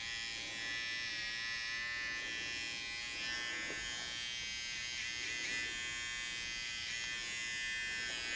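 Electric hair trimmer running with a steady buzz while cutting the contour hair short around the ear and nape.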